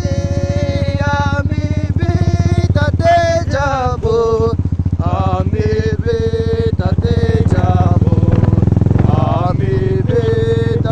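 Motorcycle engine running steadily, mixed with a song in which a voice sings held, wavering notes.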